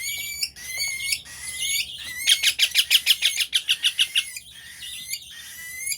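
Baby parrot chicks begging for food: scattered high chirps, then a run of rapid, evenly spaced begging calls at about seven a second for about two seconds in the middle, then a few more chirps.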